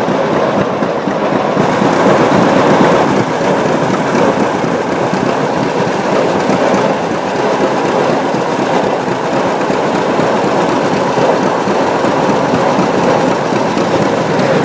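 Vintage farm tractors running as they drive along a road, heard as a steady, rough rumble with no distinct engine beat.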